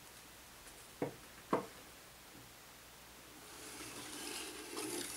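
Two short, light knocks, then a rustling scrape of about two seconds as a cardboard kamishibai picture card is slid sideways out of its wooden frame.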